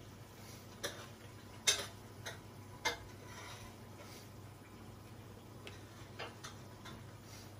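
Light clicks and taps from a hand laying tomato slices onto a filled baguette: four sharp ones in the first three seconds, the loudest about a second and a half in, then a few fainter ones. A low steady hum runs underneath.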